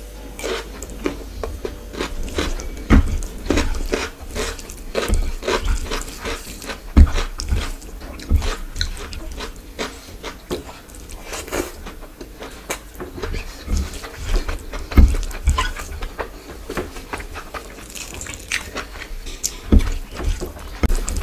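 Close-miked eating sounds: a bite, then wet chewing and mouth clicks, mixed with the squelch of a hand kneading rice and curry on a plate. Irregular clicks and crackles throughout, with a few soft low thumps.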